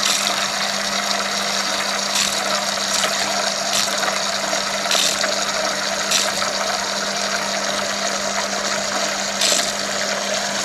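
LG refrigerator's door water dispenser running water into a container, over a steady low hum, with several irregular spurts as air is purged from the newly fitted water filter.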